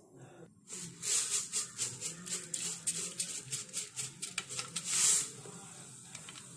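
Mustard seeds popping in hot cooking oil in a pot: rapid, irregular sharp pops begin about a second in, with a louder burst of sizzling near five seconds, then the pops die down to a faint steady sizzle.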